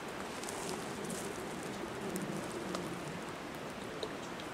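Steady rushing hiss of flowing river water, with a few faint ticks of brush or twigs.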